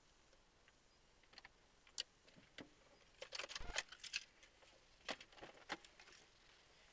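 Scattered clicks and short rattles inside a parked car's cabin, with a dense cluster about three to four seconds in and a few more near the end, over near silence.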